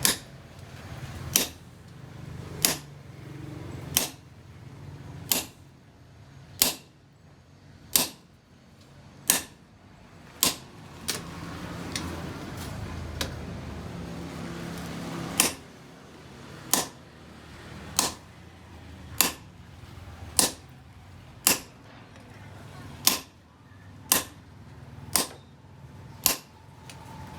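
Hammer blows on steel over an anvil, struck one at a time about every second and a quarter, each with a short metallic ring, with a few seconds of lighter taps midway: hand-forging hot steel.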